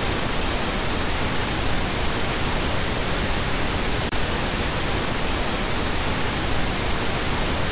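Steady, loud static hiss like an untuned analog TV, the noise of a lost analog video signal. It drops out for an instant about four seconds in.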